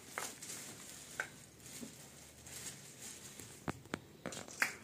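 Green pea pods being shelled by hand: scattered small snaps and clicks as pods are split and peas drop into a steel bowl, with light rustling between them.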